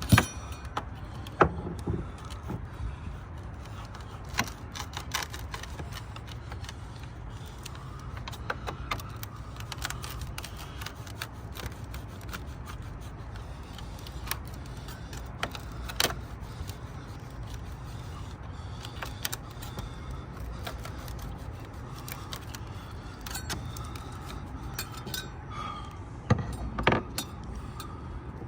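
Scattered knocks, taps and metallic clinks of hand tools working an old deck hatch bedded in 5200 sealant loose, over a steady low rumble, with a few sharper knocks standing out.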